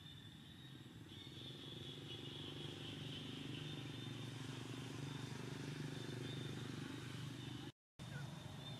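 Faint outdoor background: a steady low rumble with a steady high hiss over it, cutting out completely for a moment near the end.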